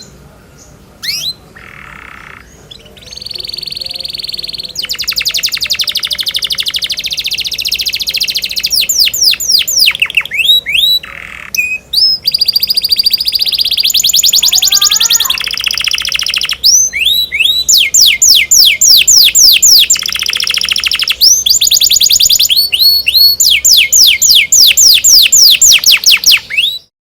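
Domestic canary singing a long, loud song of rapid rolling trills and runs of fast, downward-sweeping repeated notes, with buzzy rattles between phrases. The song cuts off abruptly near the end.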